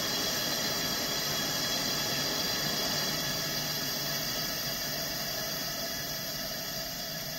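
Coleman 413C liquid-fuel camp stove burner burning with a steady rushing noise. It eases slightly over the last few seconds as the flame shrinks.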